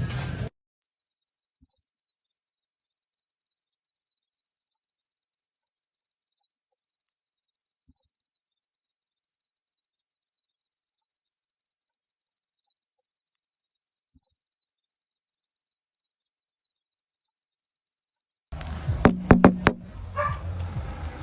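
Insects calling in a steady, high-pitched, rapidly pulsing chirr that starts abruptly and cuts off abruptly about three seconds before the end. It is followed by a few sharp knocks.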